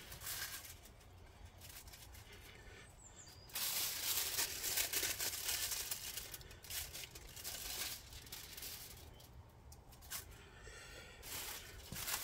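Aluminium foil crinkling and rustling in bursts as a large wrap is folded into it. It is loudest for several seconds from about three and a half seconds in.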